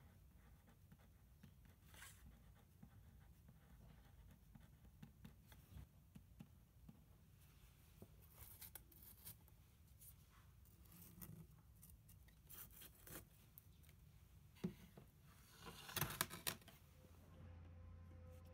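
Faint handling sounds: a pen scratching on plastic plant labels and the labels being picked up and set down on a wooden table, with a sharp click and a short cluster of louder scrapes and clicks about two-thirds of the way in. A low steady hum comes in near the end.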